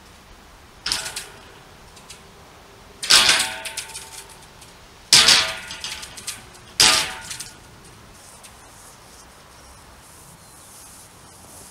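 Lengths of square steel profile pipe clanging against each other as they are shifted into place: four ringing metallic clanks about two seconds apart, the middle two the loudest.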